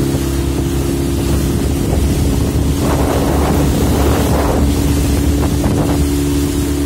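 Small boat's outboard motor running steadily at high speed, with wind across the microphone and water rushing past the hull; heavier splashing of spray from about three to six seconds in.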